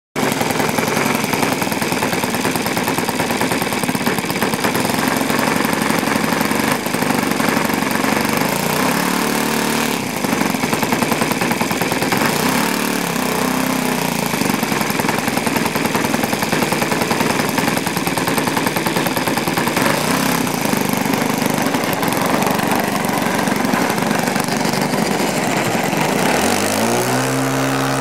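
OS FS-120 Surpass III four-stroke glow engine, fitted with new bearings, running steadily in an RC model aeroplane. About a second and a half before the end it revs up, its pitch rising.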